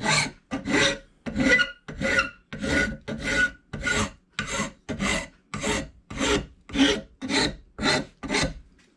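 Hand file rasping back and forth across the end of a hickory hammer handle clamped in a vise, in quick, even strokes a little over two a second. The file is rounding the handle's corners so it will fit the hammer head's eye.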